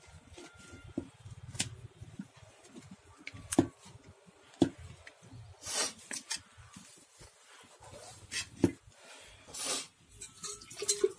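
A stick stirring and mashing stiff rice-flour dough in a steel bowl: irregular knocks and clacks against the metal, with a few short scraping scuffs.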